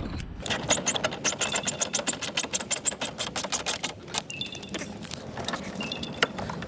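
Rapid, even clicking of a hand tool working a fastener on the car door for the first few seconds, then scattered metallic clicks and a few short clinks.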